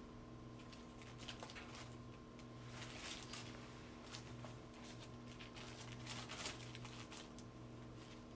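Faint, irregular rustling and crinkling of a paper-and-plastic sterile drape and kit wrapping being unfolded and handled, over a steady low electrical hum.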